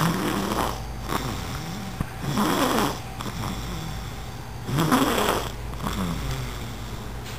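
A baby snoring in her sleep: a louder snore about every two and a half seconds, with softer breaths between.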